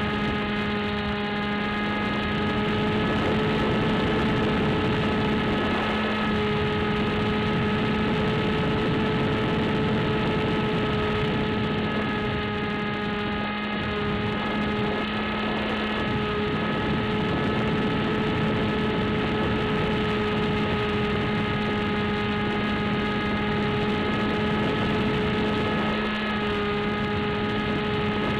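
Electric motor and propeller of an AXN Floater Jet RC plane running at a steady pitch, heard from on board the plane, with wind noise underneath.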